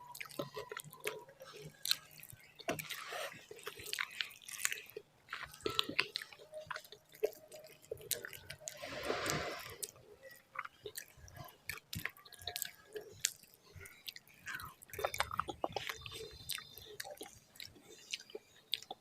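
Close-up chewing of a mouthful of rice and mashed-vegetable bharta, with wet clicking mouth sounds throughout and a longer swishing noise about nine seconds in.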